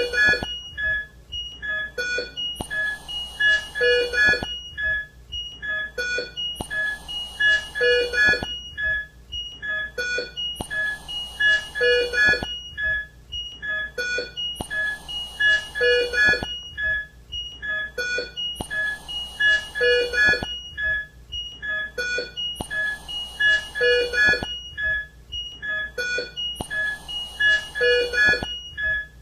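Intensive-care bedside equipment alarms: many short electronic beeps at several pitches, overlapping in a pattern that repeats every four seconds.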